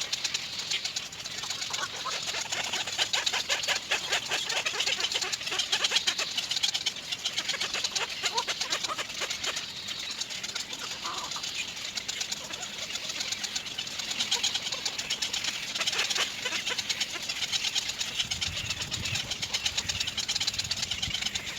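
Birds chirping over a dense, rapid high-pitched ticking, with a low rumble near the end.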